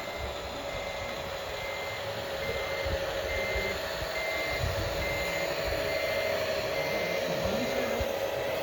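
Reversing beeper of an RC model truck: a steady high beep repeating about three times every two seconds, stopping near the end, over the steady whine of the model's motor.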